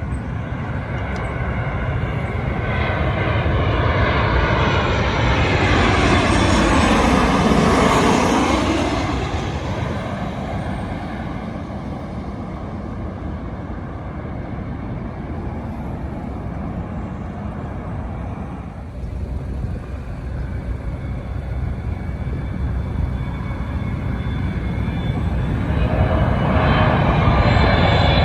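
Jet airliner passing overhead on landing approach: its engine noise swells to a loud peak about eight seconds in, with a falling pitch sweep as it goes over, then fades. Near the end a second jet comes in, its engine whine rising.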